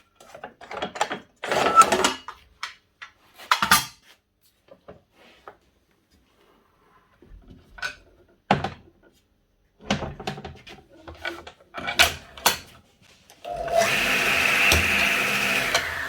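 A few knocks and clatters of handling the saw, then, about three-quarters of the way in, the DeWalt DW743 saw's induction motor starts and runs up to speed with a steady whine rather than just humming, a sign that the motor now starts. Near the end the whine begins to drop in pitch as it winds down.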